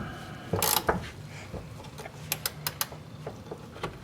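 Ratchet wrench working a rusted nut off a transmission crossmember bolt: a scraping stroke under a second in, then a run of short, sharp pawl clicks a little past the middle.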